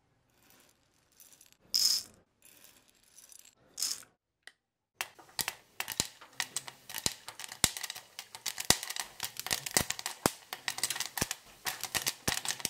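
Dry popcorn kernels rattling against a spoon and glass bowl in a few short bursts. Then, from about five seconds in, popcorn popping in a homemade popcorn machine: many quick, irregular sharp pops, growing denser.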